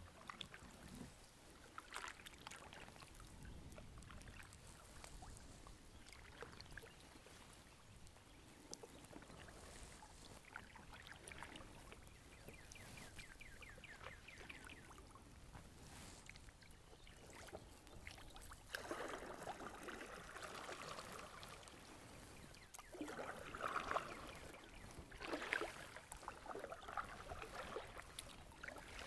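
Quiet kayak paddling in calm river water: soft drips and small splashes from the paddle, with louder splashing strokes in the second half.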